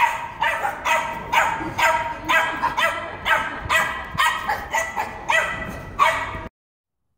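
Small dog yapping excitedly: a rapid run of high-pitched barks, about two a second, that cuts off suddenly near the end.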